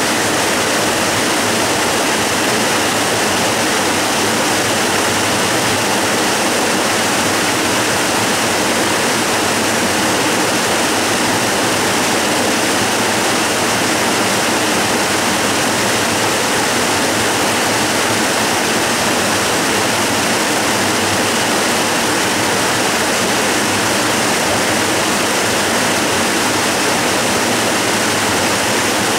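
Waterfall rushing steadily: an even, unbroken wash of falling and splashing water, strong in the middle and upper range with little deep rumble.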